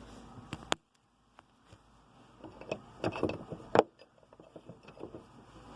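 Handling noise: a few sharp clicks, then a brief gap of silence about a second in, then a run of clicks, knocks and rattles, the loudest a sharp knock near the middle, as hard parts and the camera are handled.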